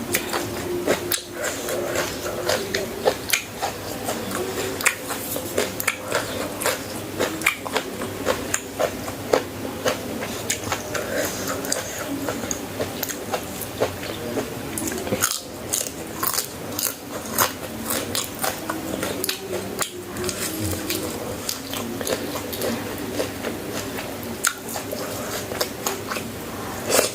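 Chewing and biting into crunchy food, with many sharp, irregular crunches.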